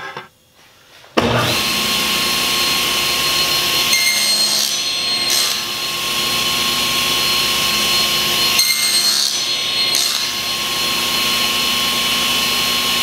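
Table saw with a carbide-tipped blade running and cutting quarter-inch aluminum plate: a loud, steady whine that starts suddenly about a second in, with two stretches where the sound turns harsher and higher.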